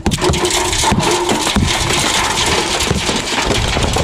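A handheld power tool chipping into the brick and mortar of an old chimney, a loud steady rattling hammer that starts abruptly.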